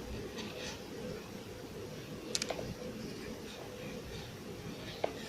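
Quiet room tone with a faint steady hum and a few soft clicks from a crochet hook and yarn being worked, the brightest a quick double click about halfway through.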